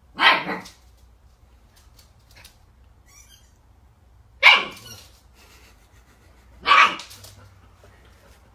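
A dog barking three times, single barks a couple of seconds apart.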